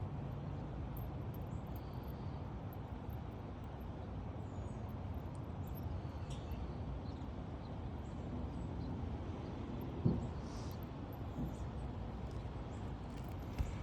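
Steady low outdoor background rumble, with one short sharp click about ten seconds in.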